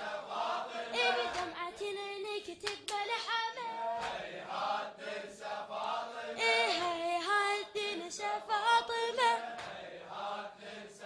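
Unaccompanied chanting of a Shia latmiya mourning elegy: a young reciter's sung voice with the mourners' voices, in a sustained, melismatic line that carries on with only short breaks.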